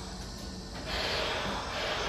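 Keihan 13000-series electric train standing at the platform with a steady low hum, and a hiss of air that swells about a second in.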